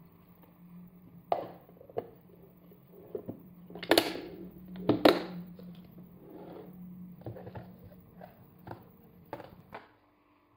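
Clip-lock plastic lid pressed onto a glass food container and its clips snapped shut, with two loud snaps about four and five seconds in. Then lighter knocks and clicks as a plastic food container and its lid are handled.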